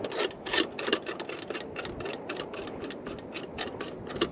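Small metal clicks, taps and scrapes, several a second at an uneven pace, as M8 hex bolts are fitted into the frame of a folding steel solid-fuel pocket stove of the Esbit type.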